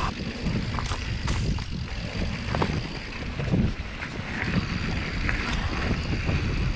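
Wind noise on the microphone and the rumble of a Yeti SB150 mountain bike's tyres on a dirt trail while riding, with several short knocks and clicks from the bike over rough ground.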